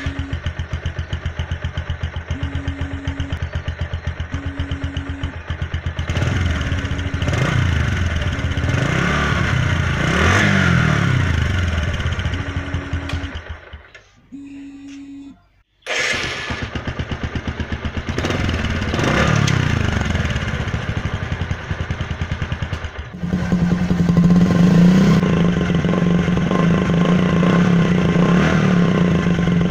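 Motorcycle single-cylinder engine running through its stock exhaust silencer: an even idle, with the throttle blipped and revved several times. It dies about halfway through, restarts moments later, revs again, and settles into a steadier, stronger idle for the last few seconds.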